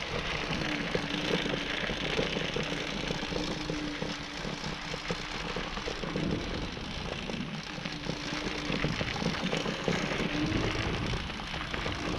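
Nanrobot Lightning electric scooter rolling along a gravel path: a steady crunch and rattle from the tyres and frame shaking over the gravel, with a low electric motor hum that comes and goes.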